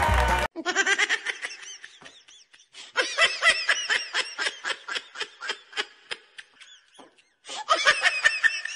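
High-pitched laughter in quick, rapid bursts: a short burst near the start, a longer run from about three seconds in, and another short burst near the end.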